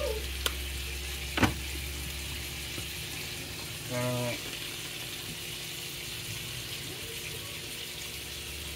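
Diced raw chicken sizzling steadily in butter and sesame oil in a nonstick skillet, with two sharp clicks in the first second and a half.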